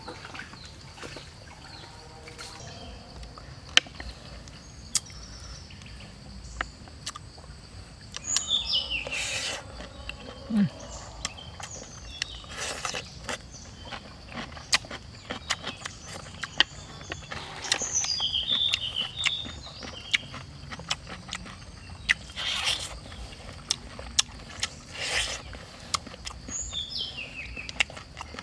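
Eating sounds: chopsticks clicking against a plate and bursts of chewing and biting on fried pork ribs and noodles. Birds chirp three times, and a steady high insect drone runs underneath.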